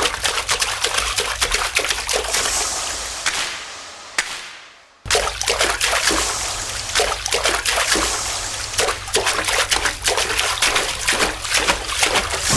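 Rain falling: a dense hiss crowded with sharp drop splashes over a steady low rumble. It fades down just before five seconds in, then starts again abruptly.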